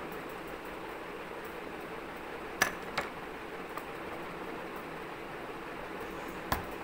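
Small parts being fitted together by hand at a table: a few sharp clicks, two close together about two and a half seconds in and another near the end, over a steady hiss.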